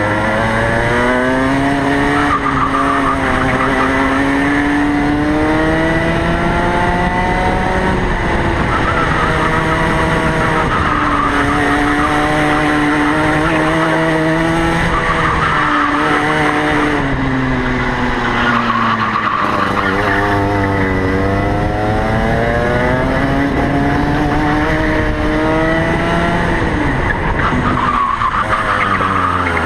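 Two-stroke racing go-kart engine heard from on board, its pitch climbing for a few seconds as the kart accelerates, then dropping as the driver lifts off, in repeated cycles around the lap.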